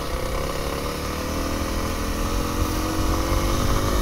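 Kawasaki KLX300's single-cylinder four-stroke engine running as the bike rides along, its pitch rising slowly in the second half as it picks up speed, over a steady low rumble.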